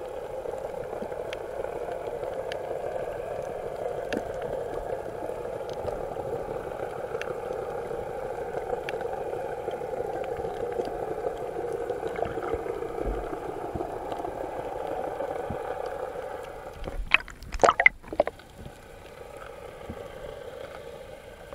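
Underwater, the steady muffled drone of a boat engine carried through the water, with faint ticks over it; the drone fades about sixteen seconds in, and a few loud sharp noises follow soon after.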